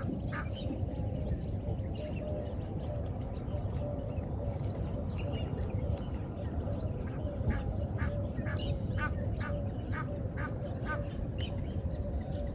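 Birds calling, many short repeated calls, coming thickest in a quick run about eight to eleven seconds in, over a steady low background rumble.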